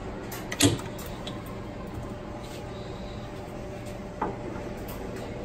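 Two sharp metal knocks, about three and a half seconds apart, from a chuck key being worked in a lathe's three-jaw chuck to clamp the workpiece, over a steady low machine hum.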